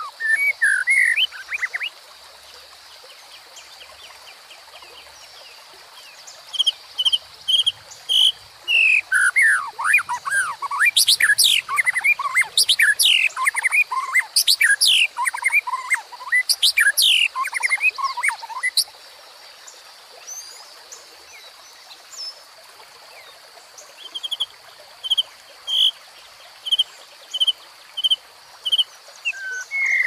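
White-rumped shama singing over the steady rush of a shallow stream. A long stretch of loud, varied whistles and quick rising and falling notes runs from about 7 to 19 seconds in. Near the end comes a row of evenly spaced short notes, with only the water between.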